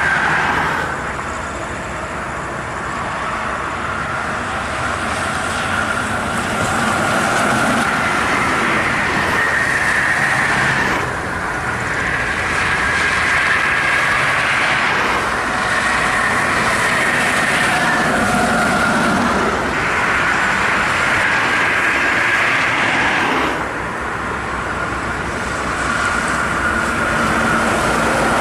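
Highway traffic noise as large intercity coaches and cars drive past at speed: a dense rush of tyres and engines, with a steady whine whose pitch shifts every few seconds.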